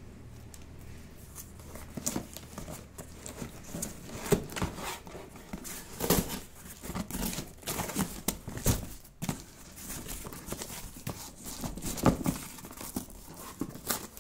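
Cardboard shipping box being handled and torn open: irregular crinkling, rustling and tearing, with a few sharper, louder scrapes among them.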